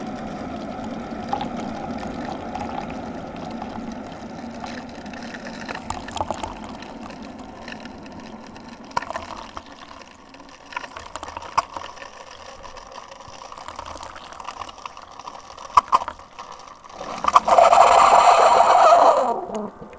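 Keurig single-serve coffee maker brewing: its water pump runs with a steady hum while water gurgles and trickles into the cup, then it tails off into quieter gurgles and clicks. Near the end comes a loud noisy burst lasting about two seconds.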